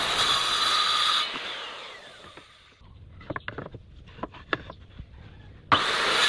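DongCheng DMY02-185SH 1,100-watt circular saw running, then switched off about a second in, its whine falling as the blade winds down. A few scattered clicks and knocks follow, and near the end the saw starts again abruptly.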